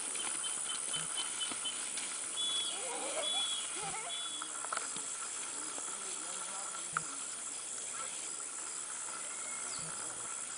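Rural outdoor ambience under a steady hiss, with faint distant voices and three short high chirps between about two and a half and four seconds in, and a single sharp click near seven seconds.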